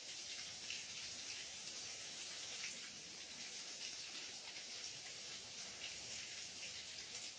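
Steady rain falling, an even hiss with scattered small drip and spatter ticks.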